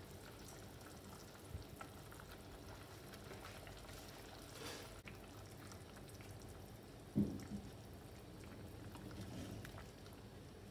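Tamarind fish gravy bubbling faintly in an earthenware pot as fish slices are slipped in, with soft splashes and a sharp knock of a wooden spoon against the pot about seven seconds in.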